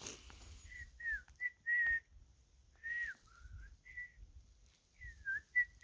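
A series of clear whistled notes near one pitch: short, slurred notes with small dips and rises, coming in uneven little groups like a loose tune.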